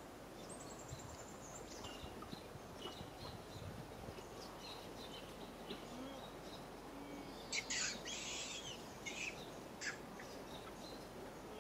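Outdoor ambience: a steady background hiss with scattered small bird chirps. A few louder high-pitched calls stand out about seven and a half seconds in, with two shorter ones near nine and ten seconds.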